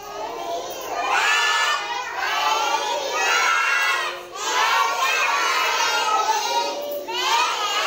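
A roomful of young children loudly shouting out a rhyme together in unison, in phrases with short breaks about four and seven seconds in.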